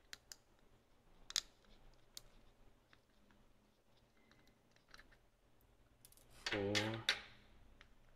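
Faint, scattered clicks and taps of a small precision screwdriver turning screws in a compact digital camera's metal frame. A short low voice sound comes about six and a half seconds in.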